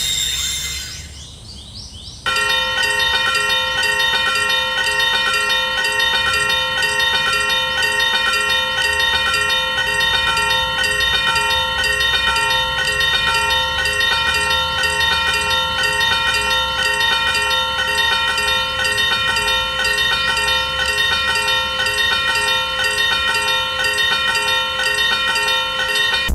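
Level crossing warning bell ringing continuously in quick, evenly repeated strokes, starting about two seconds in.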